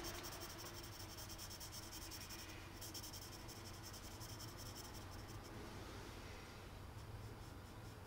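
Faint scratching of a 2B graphite pencil on drawing paper in quick back-and-forth shading strokes, briefly pausing about two and a half seconds in and growing fainter after about five and a half seconds.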